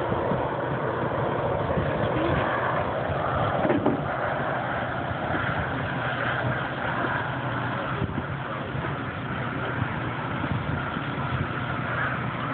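Twin P-120 turbines of a large scale model SR-71 jet running in flight: a steady jet roar with a whine that wavers in pitch, easing slightly after a few seconds as the model flies farther off.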